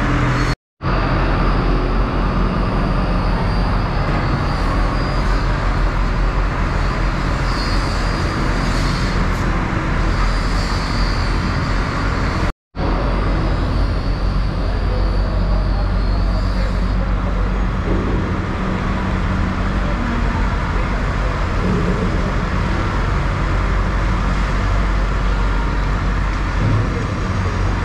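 A steady low motor drone over continuous background noise, cutting out completely twice for a moment, about a second in and about halfway through.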